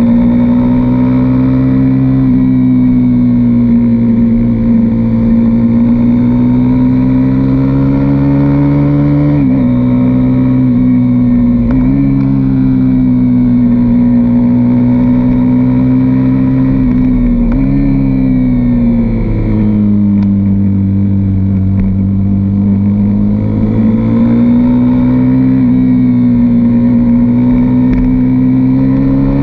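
A KTM RC single-cylinder sportbike engine running hard under the rider at track speed. The revs rise and fall through the corners, with sudden jumps in pitch a few times as gears change, over a steady rush of wind noise.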